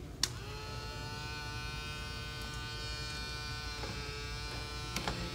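A switch clicks and a small electric motor on the trainer circuit starts up, then runs with a steady, even whine. There are a couple of lighter clicks near the end.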